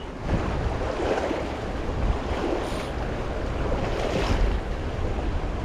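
High, fast river water rushing steadily, with wind rumbling on the microphone.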